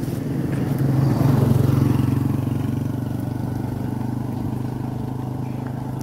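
Motorcycle tricycle (motorbike with sidecar) passing close by and pulling away, its engine running steadily, loudest about a second and a half in and then slowly fading.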